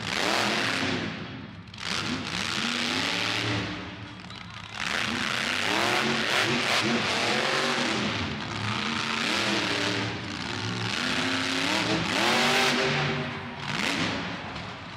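Monster truck engine revving hard in several surges, its pitch climbing and falling with each blip of the throttle.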